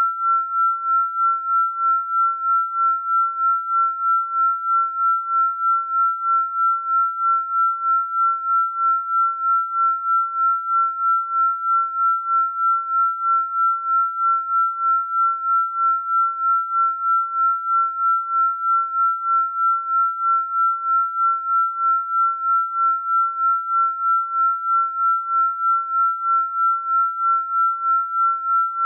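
A synthesized pure sine tone held at one unchanging pitch, swelling and fading evenly about two and a half times a second.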